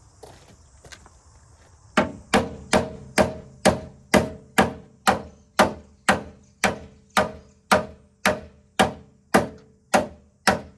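Hammer blows on the Commodore's steel chassis rail, about twenty in a steady rhythm of roughly two a second, each with a short metallic ring. The hammering is done to relieve stress in the metal while the rail is pulled straight, so it holds its new shape.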